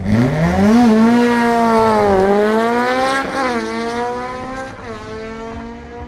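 A BMW 335i and a Škoda 1000 MB with a rear-mounted 2-litre Honda S2000 engine accelerating hard away from a drag-race start. The engine note climbs and drops back at each of several upshifts and fades as the cars pull away down the strip.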